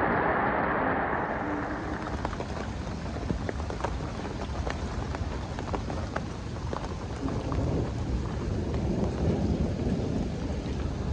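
Light rain still falling after a storm, a steady hiss with scattered sharp ticks of single drops landing close by, over a low rumble.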